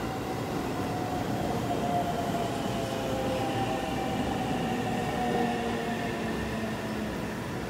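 A five-car electric local train rolling into the platform as it arrives, with a rumble and a whine that sags slightly in pitch.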